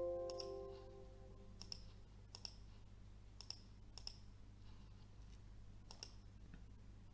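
The tail of a Windows warning chime, the alert for a Microsoft Access message box saying a required field was left empty, ringing out and fading over about a second and a half. Then a computer mouse clicks sharply several times, spread out about a second apart.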